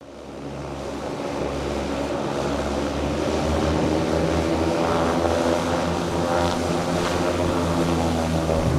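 Aircraft engines running steadily, fading in over the first few seconds.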